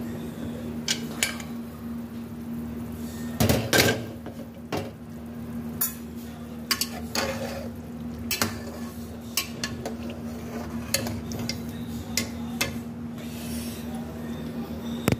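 Metal spoon stirring and scraping in an aluminium pressure cooker of simmering curry, with repeated clinks and knocks against the pot. A louder clatter comes about three and a half seconds in.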